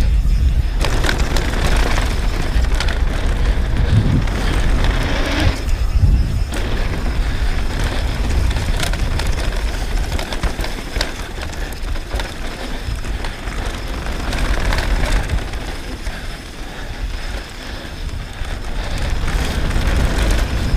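Specialized Demo 8 downhill mountain bike ridden fast down a dirt trail: a steady rush of tyre noise on dirt and gravel with a low rumble, and scattered sharp knocks and rattles as the bike hits bumps and rocks.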